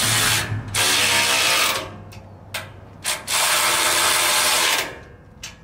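Power ratchet run in bursts to tighten the bumper mounting nuts: a run at the start, another of about a second, two brief blips, then a longer run of about a second and a half before it stops.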